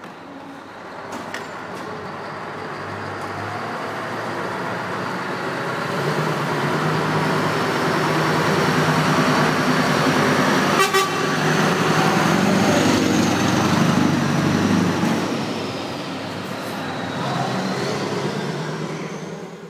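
Scania R-series truck engine running as the tractor unit pulls a refrigerated semi-trailer slowly past, getting louder as it draws near. There is one brief sharp sound about eleven seconds in.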